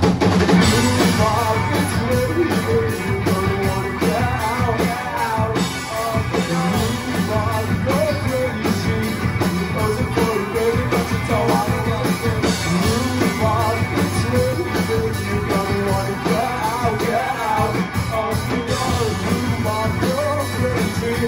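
Live rock band playing electric guitars, bass guitar and drum kit, with a lead vocal singing over them.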